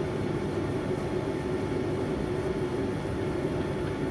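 Steady low rumbling hum that does not change, like a running machine or traffic heard through a room.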